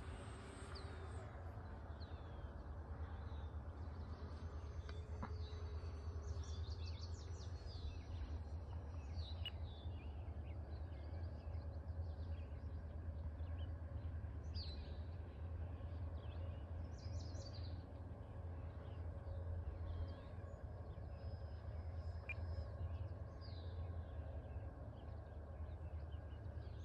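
Songbirds chirping and calling on and off over a steady low rumble, with a remote-control model plane's motor fading away in the first few seconds.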